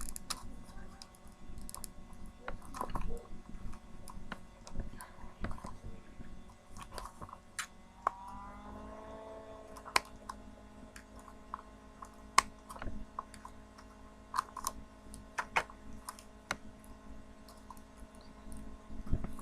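Plastic toy packaging being worked open by hand: scattered crinkles, clicks and snaps of stiff plastic. About eight seconds in, a faint steady hum starts and carries on underneath.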